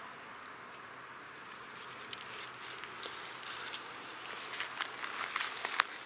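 Steady buzzing hum of forest insects, with two short high bird chirps about two and three seconds in and a few light clicks and rustles near the end.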